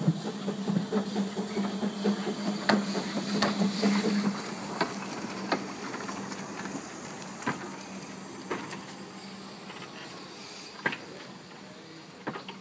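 Narrow-gauge steam locomotive Lilian, a Hunslet saddle tank, hissing steam with irregular clanks and knocks over a steady low hum. It is loudest in the first few seconds, then fades to scattered knocks.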